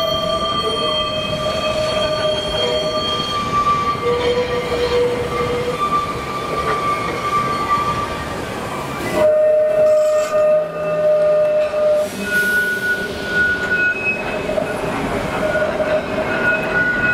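Heritage tram running on street track, its wheels squealing in long steady tones of shifting pitch over the rumble of running. The sound changes abruptly about nine seconds in.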